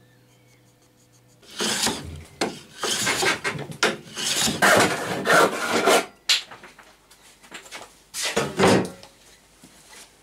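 Rough scraping and rubbing of wood on wood: a run of uneven strokes for about four seconds, then one more near the end.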